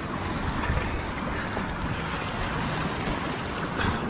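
Sea surf washing against a rock ledge, with wind rumbling on the microphone. A couple of brief knocks, about a second in and near the end.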